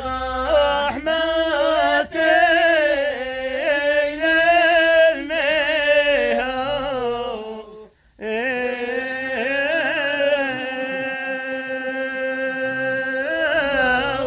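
A single voice singing a Yemeni ma'ina folk chant, with a winding, ornamented melodic phrase, a short break for breath about eight seconds in, then one long held note.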